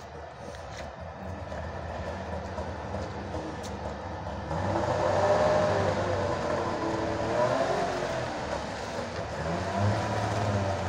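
Wartburg Tourist's three-cylinder two-stroke engine running as the car reverses. It gets louder about four and a half seconds in, and its note rises and falls with the throttle.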